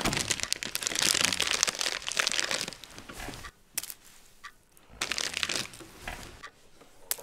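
Plastic bag of Halls cough sweets crinkling loudly as it is opened and handled, in two spells with a few light clicks in between.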